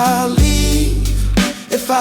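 Slow dark blues music: a wavering melody line over deep sustained bass notes, with a drum beat about once a second.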